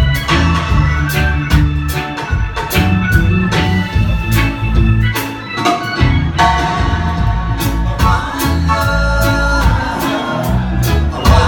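Reggae band playing live: a heavy bass line under regular drum strikes, with held chords and melody on top.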